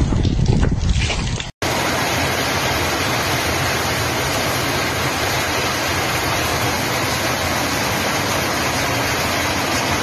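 A heavy downpour of rain and hail falling steadily, heard as a dense, even hiss that starts after a brief cut about a second and a half in. Before the cut there is a low, fluctuating rumble.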